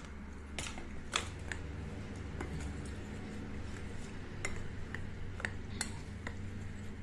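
Steel spoon stirring a dry flour mixture in a glass bowl, with irregular light clinks and scrapes where the spoon knocks against the glass, over a low steady hum.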